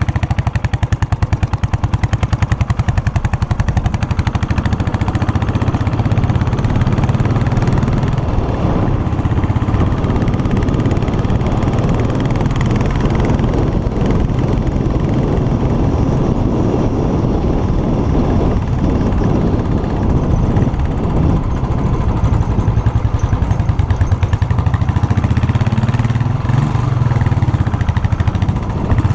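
Royal Enfield's single-cylinder engine running through its stock exhaust while the motorcycle is ridden, a steady, rapid train of throaty exhaust beats.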